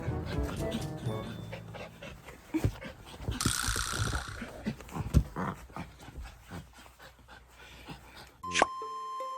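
Toy poodle panting and snuffling, with scattered soft clicks and a breathier stretch about three and a half seconds in. Background music fades out over the first two seconds, and a chime near the end starts a new tune.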